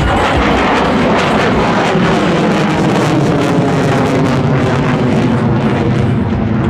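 Military fighter jets' engines, a loud steady jet noise as the jets fly a slow loop in a flying display.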